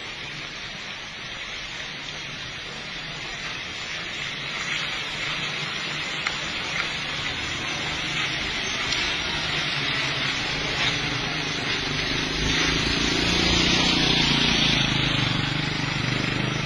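Vehicles driving past on a wet road: a steady watery hiss of tyres and spray, with engine rumble that swells as a vehicle passes close, loudest a few seconds before the end.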